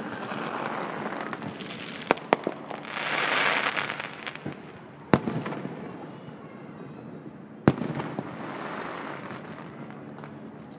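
Aerial fireworks shells bursting some way off: several sharp bangs, the two loudest about five and nearly eight seconds in, over a hissing rush that swells and fades between them.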